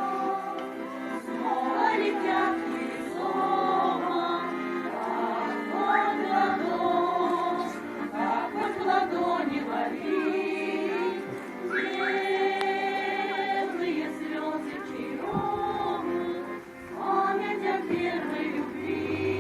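Choir singing with musical accompaniment, sustained held notes changing pitch.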